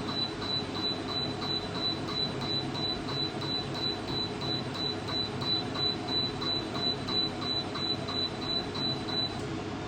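Laser hair removal machine beeping rapidly as it fires, about three short high beeps a second, over the steady hum of the machine running; the beeping stops near the end.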